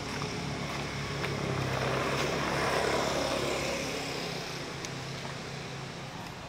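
A passing engine: a steady low hum with a rush of noise that swells to a peak about halfway through, then fades away.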